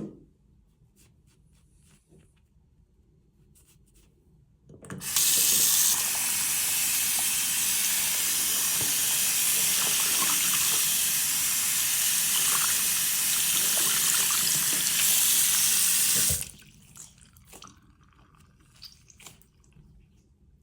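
Water running from a tap into a sink, turned on about five seconds in, running steadily for about eleven seconds and then shut off suddenly. A single short knock right at the start.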